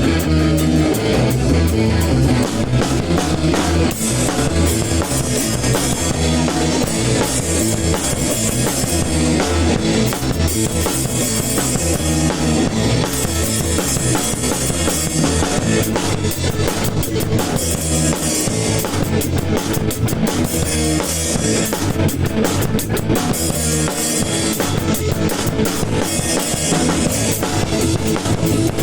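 A band playing a ska tune, led by a PDP Encore acoustic drum kit with guitar over it, loud and steady.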